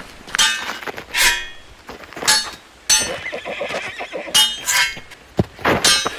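Horse neighing again and again, about seven short high calls, with a single dull thud a little after five seconds in.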